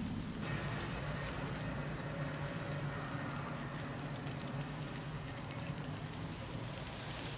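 Outdoor background with a steady low rumble and a few short, high bird chirps about two and a half, four and six seconds in.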